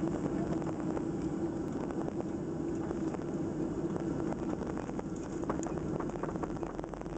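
Cabin noise of a Boeing 737 jetliner taxiing: a steady low rumble and hum from the jet engines, with scattered light clicks and rattles as the airliner rolls along the taxiway.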